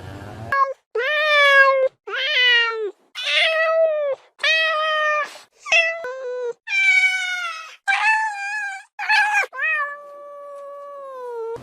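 A cat meowing over and over, about a dozen meows in quick succession. The last meow is long and drawn out and drops in pitch at its end.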